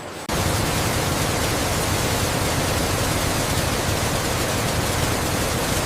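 A loud, steady, even rushing hiss that cuts in suddenly about a third of a second in, replacing a quieter rumble.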